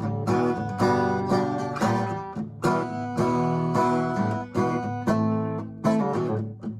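Acoustic guitar strumming chords, with sharp strokes every half second to a second and the chords ringing between them.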